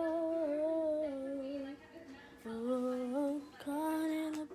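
A child singing a slow tune to himself in long held notes, three phrases broken by short pauses.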